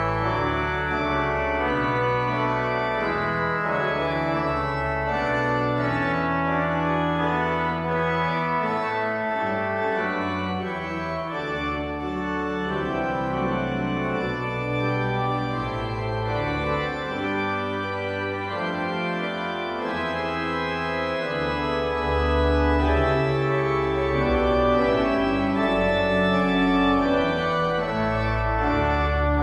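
Organ music: slow, sustained chords changing every second or two over deep pedal bass notes.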